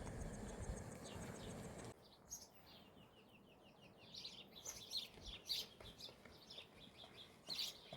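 Small birds chirping in quick runs of short, high chirps, after a stretch of noisy outdoor rumble that cuts off abruptly about two seconds in.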